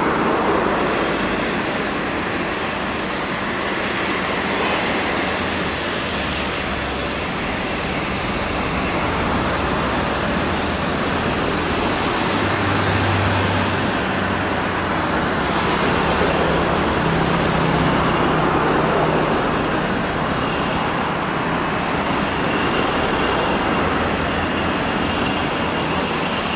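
Twin rear-mounted turbofan engines of an Embraer Legacy business jet running at low taxi power: a steady hiss with a faint high whine and a low hum.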